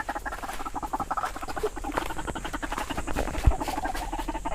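Fast, irregular crackling and rustling, like dry leaves and brush being pushed through underfoot, with a single low thump about three and a half seconds in.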